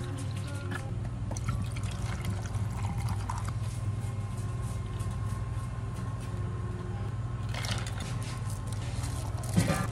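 Liquid poured over ice in clear plastic cups: peach iced tea, then an espresso shot. A steady low hum runs underneath, and there is a sharp knock near the end.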